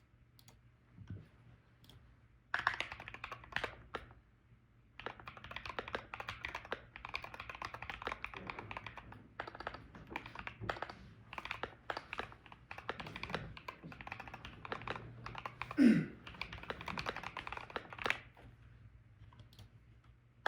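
Keychron Q65 Max mechanical keyboard with KSA keycaps being typed on. A few separate keystrokes come first, then a long stretch of fast continuous typing with one louder thump about three-quarters of the way through, and the typing stops shortly before the end.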